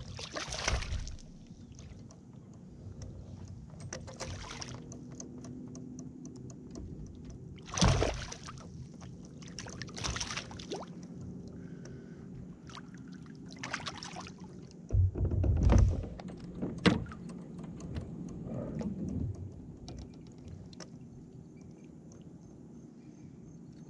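A hooked largemouth bass splashing at the surface on the line beside a plastic fishing kayak, with several separate splashes and knocks. The heaviest low thuds come about two thirds of the way through as the fish is brought against the hull and landed, with small clicks in between.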